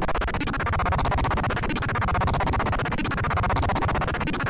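3D-printer G-code toolpath played as a stereo audio signal for an oscilloscope's X-Y display: a harsh, dense electronic buzz of rapid clicks. The buzz pulses with a short dip about every 1.3 seconds as the drawing loop repeats.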